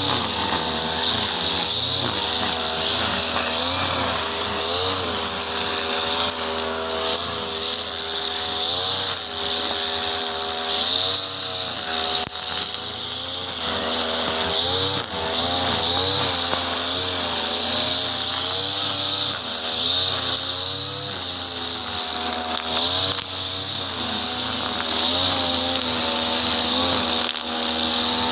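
A small engine running continuously, its pitch rising and falling again and again as its speed or load changes.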